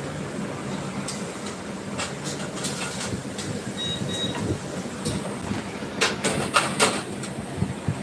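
Commercial kitchen noise: a steady rush from the lit gas burners and range, with sharp clinks and knocks of metal pans and utensils. The knocks come a few times early on and cluster about six to seven seconds in, and two short high beeps sound near the middle.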